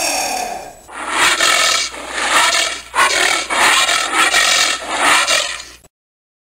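Giant anteater vocalising: the tail of a pitched call falling in pitch, then about five noisy, breathy huffs roughly one a second, cutting off abruptly near the end.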